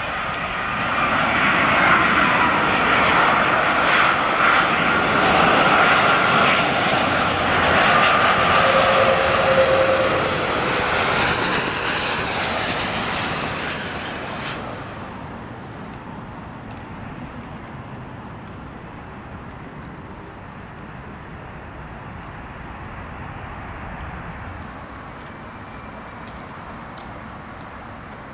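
Twin-engine Airbus A330 jetliner passing close on final approach: a loud rushing jet engine noise with a high whine over it. About halfway through the whine and hiss cut off abruptly, leaving a fainter steady rumble of the jet on the runway.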